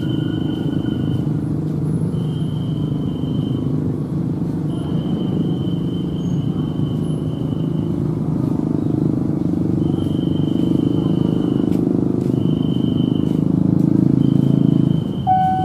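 KRL commuter electric train approaching, a steady low rumble that grows a little louder toward the end. A thin high tone sounds on and off in stretches of one to two seconds.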